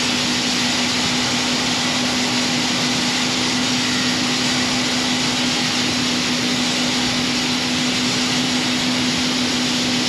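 Heavy harvest machinery running at steady working speed while harvesting corn: a constant, even drone with a steady hum underneath.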